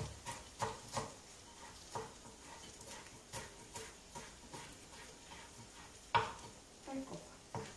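Kitchen knife chopping fresh parsley on a wooden cutting board: irregular knocks of the blade on the wood, about one or two a second, with a sharper knock about six seconds in.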